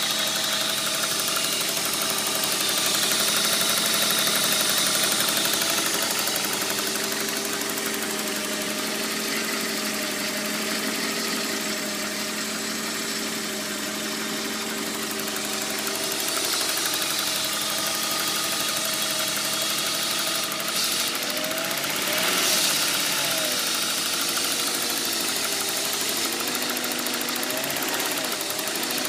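BMW M52B28 2.8-litre straight-six idling with a ticking noise; the uploader traced the ticking, with lost power and harder starting, to a failing camshaft position sensor.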